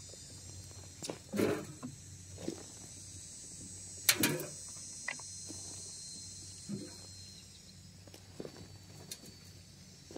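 Steel shovel driven into a pile of mushroom compost and scooping it, a string of short scrapes and thuds a second or two apart, the loudest about four seconds in. Insects keep up a steady high drone underneath.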